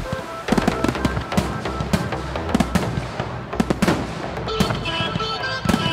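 New Year's Eve fireworks exploding in many sharp bangs in quick, irregular succession.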